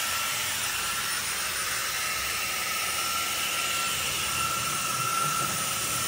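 Teqqo Powerstick Plus cordless stick vacuum running steadily: a steady high motor whine over the rush of air being drawn in.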